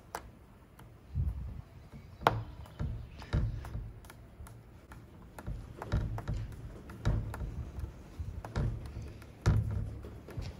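Irregular light clicks, taps and dull knocks of hands fitting the lock barrel and trim plate into a Land Rover Defender door, with a sharp click about two seconds in.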